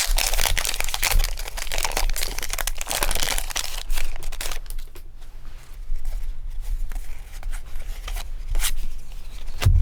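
A foil Pokémon booster pack wrapper crinkling and being torn open, loudest in the first four seconds, followed by quieter rustling and light clicks as the cards are handled.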